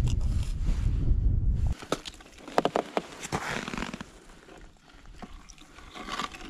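Wind buffeting the microphone in low rumbling gusts that stop abruptly after about two seconds. Then a run of sharp clicks and knocks and softer scraping as fishing gear and a plastic bait bucket are handled.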